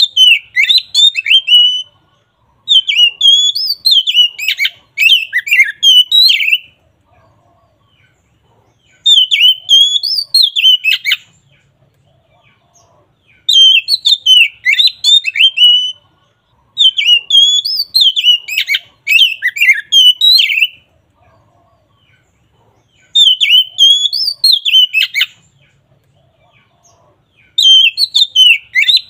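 Oriental magpie-robin (kacer) singing loudly in full voice: about seven bursts of rapid, varied whistled notes, each a few seconds long, separated by short pauses.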